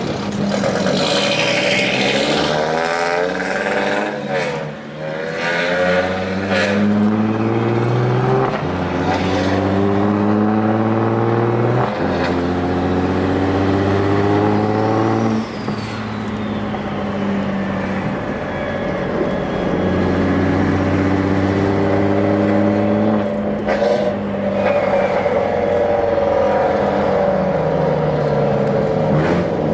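Car engine accelerating hard through the gears: its pitch climbs, then drops sharply at each upshift, three times in a row about nine, twelve and fifteen seconds in. It then holds steadier and climbs again.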